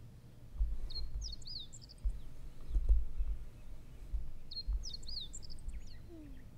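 A songbird sings the same short phrase of quick whistled and chirping notes twice, a few seconds apart. Under it, irregular low rumbling gusts of wind buffet the microphone.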